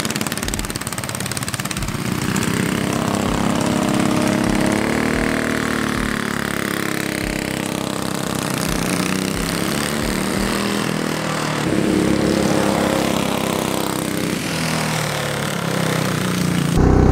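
Off-road go-kart's Predator 212 single-cylinder engine running as the kart drives, its pitch rising and falling with the throttle. It gets louder shortly before the end.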